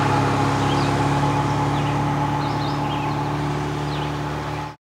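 Car engine running at a steady speed, a constant hum that cuts off suddenly near the end.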